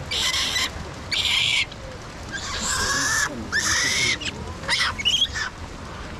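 Japanese macaques (snow monkeys) screaming: about six harsh, high-pitched calls in quick succession, some arching in pitch, the last few short rising squeals.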